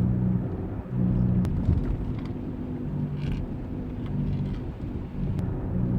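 Low droning hum from a worn front wheel bearing on a 2006 Lexus GS300 at about 40 mph, over road noise. The drone swells and fades several times as small steering movements shift the car's weight.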